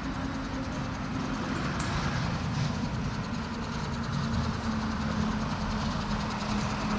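Ashok Leyland dump truck's diesel engine idling with a steady low rumble.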